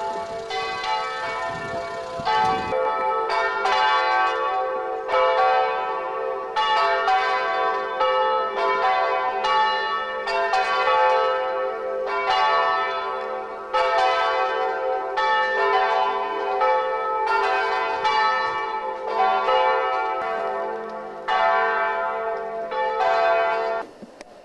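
Church bells ringing, the strikes following one another in a steady, even run of about one and a half a second over a continuous ringing hum. The ringing cuts off abruptly just before the end.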